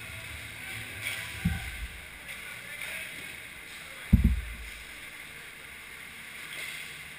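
Two dull, low thumps, about a second and a half in and again just after four seconds, over steady indoor rink background noise.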